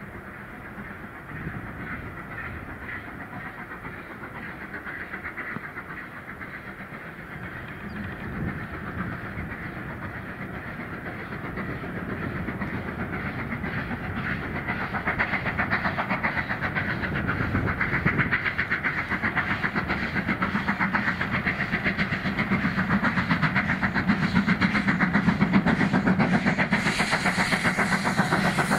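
Steam locomotive working a train, approaching and growing steadily louder, with a rapid rhythmic beat that strengthens as it nears. A brighter hiss opens up near the end.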